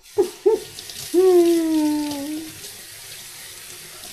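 A steady stream of liquid running from a small tap, as the spigot of a kombucha dispenser is rinsed with hot tea. Two short rising tones sound near the start, then a held, slightly falling tone for about a second and a half.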